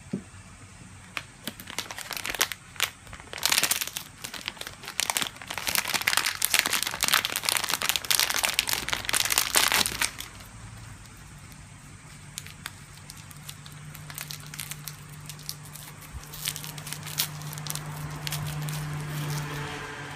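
Thin plastic film wrapper crinkling and tearing as it is peeled off a bath bomb. The crackling is densest and loudest for several seconds in the first half, then gives way to lighter, scattered crinkles.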